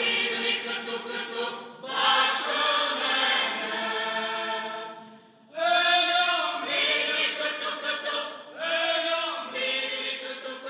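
Background vocal chant: slow, sustained sung phrases, with a short break about five seconds in.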